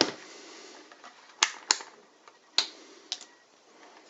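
A handful of sharp, irregular clicks and taps as a multimeter and its probes are handled and set against a battery booster's battery terminals to test its voltage, the loudest pair about a second and a half in.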